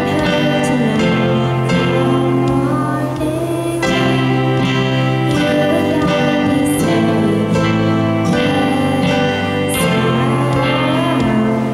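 A small ensemble of tablets played as instruments, sounding held chords and melody notes, with a girl's voice singing into a microphone over them.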